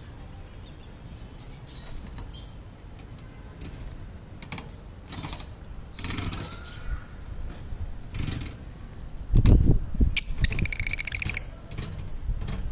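Lovebirds chirping in short high calls, then one longer, louder call lasting about a second, some ten seconds in. A loud low rumble comes just before and during that call.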